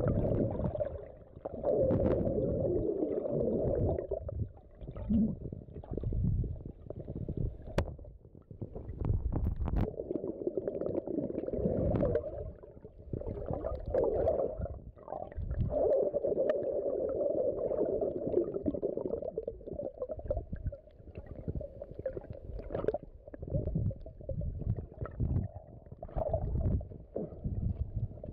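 Muffled underwater water noise picked up by a submerged phone: shallow sea water sloshing and gurgling, swelling and fading every few seconds, with scattered small clicks.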